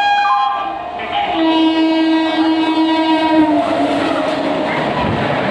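Express train horn blowing as the train runs through a station, with a short break about a second in. The horn stops about three and a half seconds in, and the steady rush and rattle of the coaches passing close by at speed takes over.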